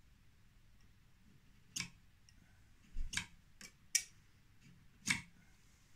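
Steel marking-out tools (a small square and marking blade) clicking and tapping against a wooden glazing bar as a tenon is marked out: about five short, sharp clicks spread unevenly over a few seconds.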